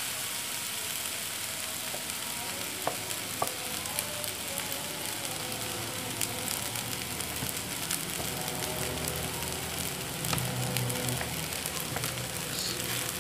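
Fried rice sizzling steadily in a wok, with a metal spatula scraping and tapping through it as chili sauce is stirred in; two sharp taps about three seconds in.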